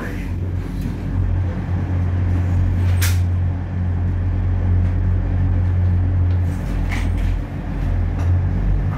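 Class 180 Adelante diesel multiple unit's Cummins diesel engines running with a steady deep drone that grows a little louder about a second in. A brief sharp noise cuts through about three seconds in, and a fainter one comes near seven seconds.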